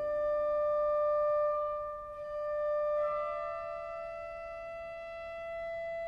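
Slow music: one long held high note, joined about three seconds in by a second note a step higher, after which the lower note fades and the higher one is held on alone.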